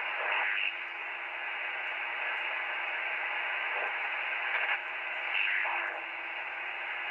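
Icom HF transceiver's receiver tuned across the 40-metre band in LSB: a steady hiss of band noise through its narrow passband, with brief garbled snatches of off-tune single-sideband signals sliding past as the dial turns, a few times.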